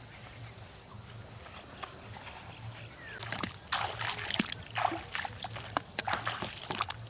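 Water sloshing and splashing in irregular, quick strikes that start about three seconds in, after a faint quiet stretch.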